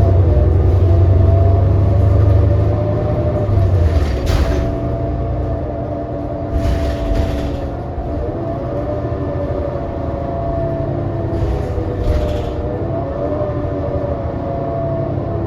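2018 New Flyer XD40 diesel city bus heard from inside while driving: a heavy low engine rumble for the first few seconds that then eases off, under a wavering whine. Three short hisses come through about 4, 7 and 12 seconds in. The wavering whine is the kind of noise that marks this coach as sounding messed up.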